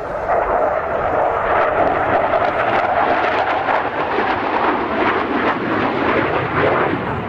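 General Dynamics F-111 swing-wing bomber's twin TF30 turbofan jet engines roaring loudly as it flies past with wings swept back, growing louder about a second in and then holding steady.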